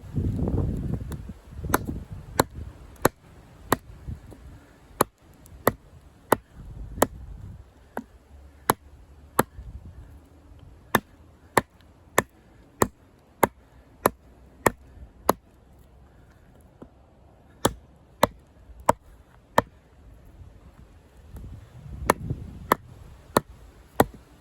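Condor Heavy Duty Kukri chopping into a log: sharp chops in a steady rhythm, a little under two a second, stopping for about two seconds past halfway and then going on.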